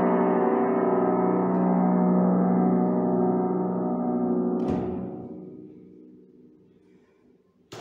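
Upright piano's final chord ringing on under the sustain pedal, no new notes struck. About five seconds in it is cut off with a soft thump of the dampers and dies away.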